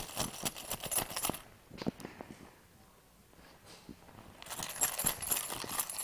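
A puppy squirming and rolling on a leather couch: quick jingling and rustling from its collar tag and the leather. It comes in two spells, with a quieter gap in the middle holding a couple of soft knocks.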